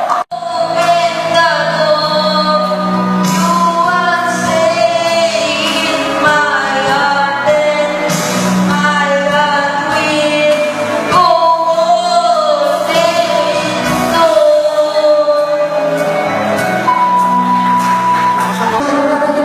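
A singer singing a melody with long held notes over backing music. The sound drops out for an instant just after the start.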